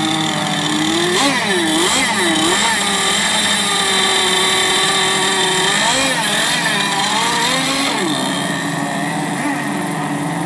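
Several small two-stroke gasoline engines of radio-controlled racing boats running at once, revved up and down so their pitch keeps swinging, with a stretch of steady high running in the middle.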